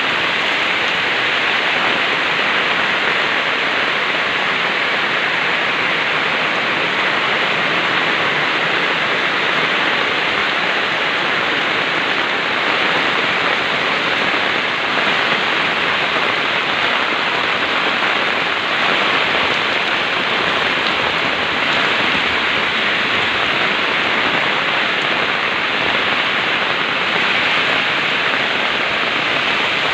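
Heavy rain pouring down steadily, a dense even hiss without a break.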